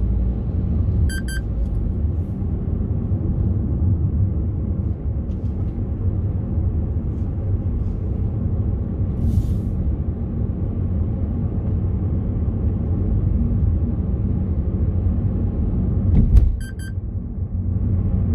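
Steady low road and engine rumble heard inside a moving car's cabin. A short electronic beeping sounds about a second in and again near the end, just after a brief thump.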